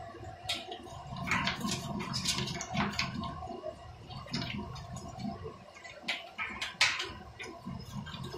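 Commercial spiral dough mixer kneading a large batch of bread dough: a steady motor hum with irregular wet slaps and squelches as the hook throws the dough against the steel bowl. The dough is getting fine and smooth but is not yet fully developed.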